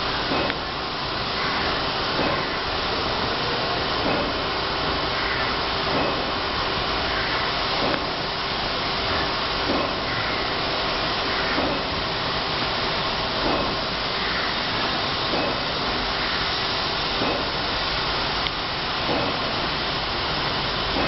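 High-pressure water jets of a touchless robotic car-wash gantry spraying a car: a steady hiss of spray with a steady hum underneath.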